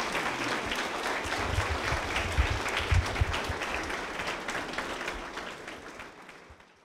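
A room of guests applauding after a toast: many hands clapping steadily, then tapering off and fading out near the end.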